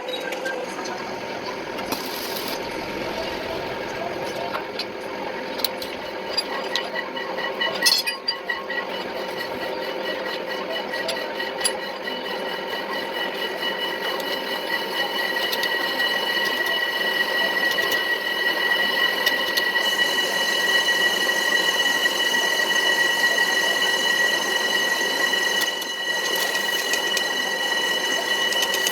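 Electric power tool motor running steadily with a whine; a higher tone sets in about seven seconds in and grows louder.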